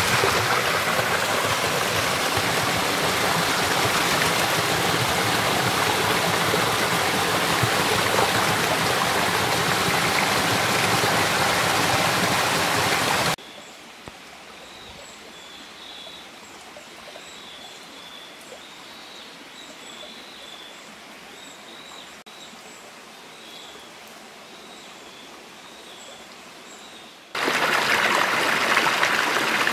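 Steady rush of water from a small waterfall splashing into a rocky pool. It cuts off abruptly nearly halfway through, leaving quieter woodland ambience with small birds chirping. The rush of a stream cascading over rocks returns near the end.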